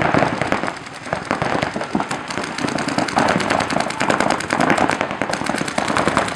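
Paintball markers firing fast strings of shots, many a second, several guns overlapping.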